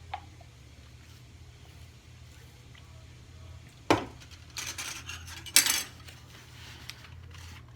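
Cutlery knocking and scraping against a plate of food: a sharp knock about four seconds in, then a few short clattering scrapes, the loudest just before six seconds.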